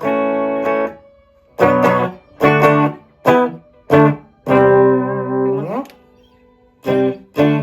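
Electric guitar played with a clean tone, with no effects engaged: a short phrase of separate chords and notes with gaps between them, including one longer held chord a little past the middle that slides up in pitch as it ends.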